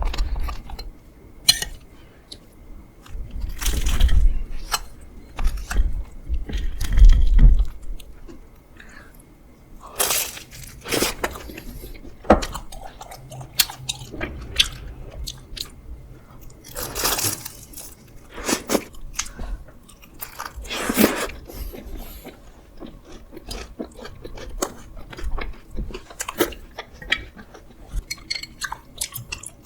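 Close-miked crunching and chewing of a crisp homemade croffle, with several louder crunchy bites among many small clicks of chewing.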